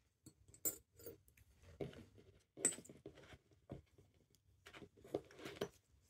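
Steel tweezers and small watch-movement parts clinking against a glass jar of benzene as the parts are dropped in for cleaning: a string of irregular light clicks and clinks, the sharpest about two and a half seconds in.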